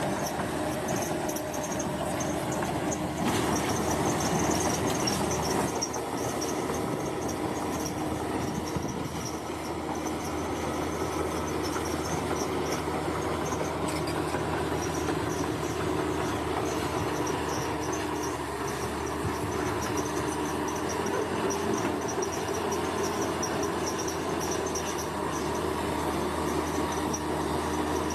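Bulldozer's diesel engine running steadily at work, with insects chirping in a high, pulsing buzz behind it.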